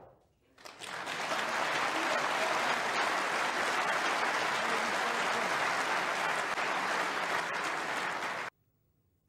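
Audience applauding in the hall. The applause builds up about a second in, holds steady, and cuts off abruptly near the end.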